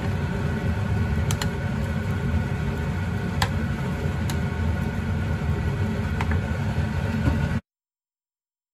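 Steady low kitchen rumble with a few light clinks of a ceramic soup spoon against the pot as the soup is stirred; the sound cuts off suddenly near the end.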